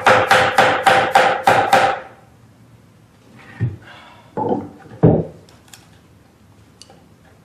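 Wooden mallet driving a carving chisel into a wooden figure: quick, even blows about five a second that stop about two seconds in. A few duller knocks follow a couple of seconds later.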